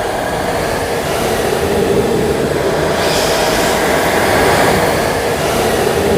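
A steady rushing rumble, slowly growing louder, with a higher hiss joining about halfway through.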